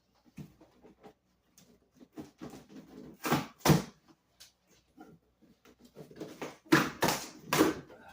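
A large cardboard box being handled and opened: cardboard scraping and rustling with scattered clicks and knocks, and two louder bursts of noise about three and seven seconds in.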